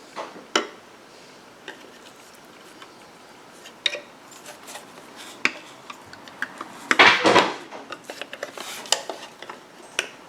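Clicks, taps and rattles of the refrigerator's evaporator fan assembly parts being handled and pushed into their clips, with a louder scraping clatter about seven seconds in.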